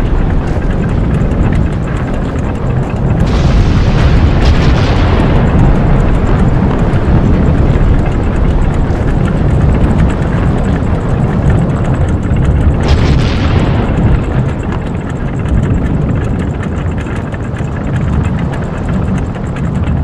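Volcano eruption sound effect: a continuous loud, deep rumble. Two sharp blasts come about three seconds in and about thirteen seconds in, each trailing off in a falling hiss.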